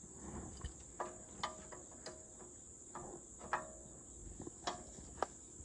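Several short metallic clinks and taps with a brief ring, a wrench working on a hydraulic hose fitting. Under them runs a steady high trill of crickets.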